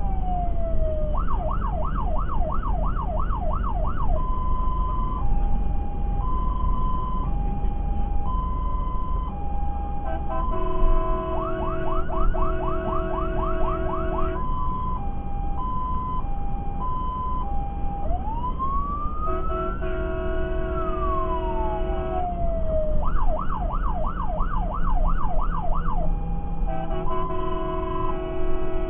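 Fire engine's electronic siren on an emergency run, cycling through its patterns: a fast yelp of about three sweeps a second, a two-tone hi-lo changing about once a second, and a slow wail rising and falling. An air horn sounds over it three times: about 11 s in for some four seconds, at about 19 s for three seconds, and near the end. The truck's engine and road noise run low underneath, heard from inside the cab.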